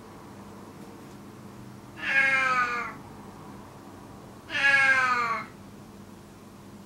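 Old ginger cat meowing loudly in a cage, two calls about a second long each, a couple of seconds apart, each sliding slightly down in pitch.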